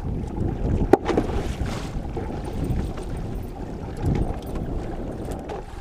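Wind rumbling on the microphone aboard an open fishing boat on the water, with a sharp knock about a second in and a few softer knocks after.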